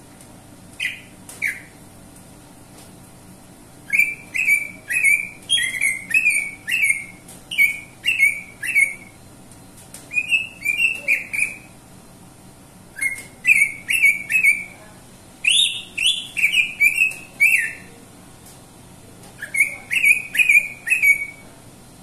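Caged greater green leafbird (cucak ijo) singing phrases of short, sharp notes that fall in pitch, two to three a second, with pauses of a second or two between the phrases.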